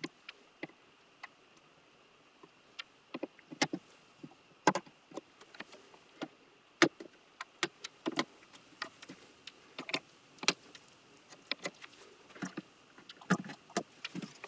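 Pliers twisting surface-mount electrolytic capacitors off a Macintosh Classic II logic board: a string of small, irregular clicks and snaps of the metal tool on the parts and the board.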